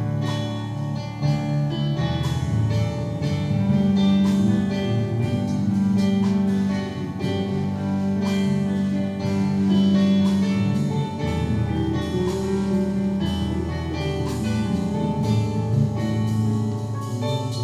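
Music: a church song with guitar and drum-kit accompaniment, with long held notes over a steady beat.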